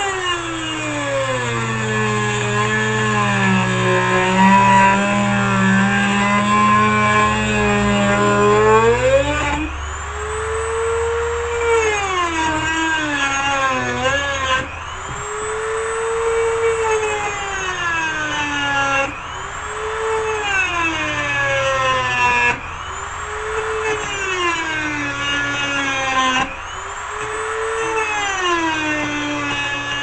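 Dremel rotary tool cutting into the copper piece of a microwave turntable motor. Its pitch sags as it is pressed into the metal and jumps back up each time it is eased off, about five times.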